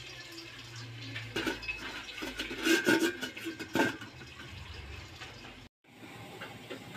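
Stainless steel pot lid clanking against the rim of a stockpot as it is set on, a few sharp metallic knocks with a short ring.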